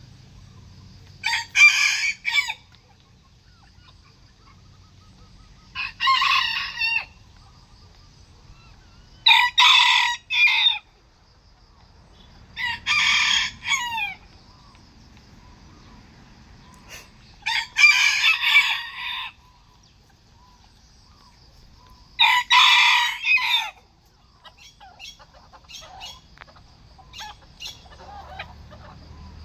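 Bantam roosters crowing, six short crows spaced a few seconds apart, with softer clucking between them near the end.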